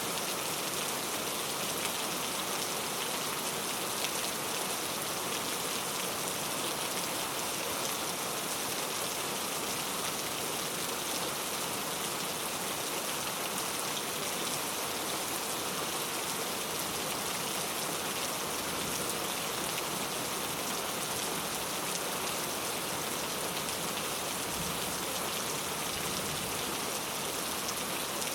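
Heavy rain falling steadily, a dense even hiss of drops with no thunder.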